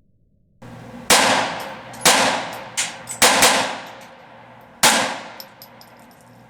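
Taurus TX22 .22 LR semi-automatic pistol firing five shots at irregular spacing, two in quick succession about three seconds in, each shot trailing off in echo.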